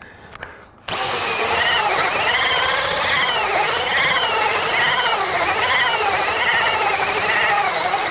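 Cordless DeWalt drill driving a large hole saw through the wooden wall boards, starting about a second in. The motor whine wavers up and down in pitch as the saw bites and frees in the cut.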